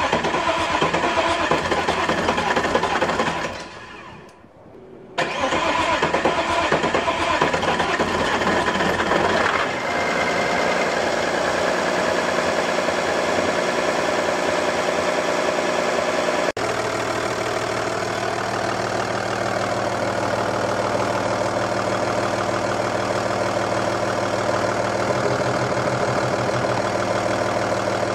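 Audi A6 C5's 2.5 TDI V6 diesel engine being started and running, on its first start after a turbocharger replacement. The sound drops almost to nothing about four seconds in, comes back, and then runs steadily.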